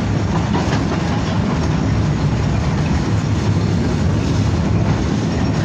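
BKM-60102 tram running along the track, heard from inside the passenger cabin: a steady low rumble of wheels on rails and the car body.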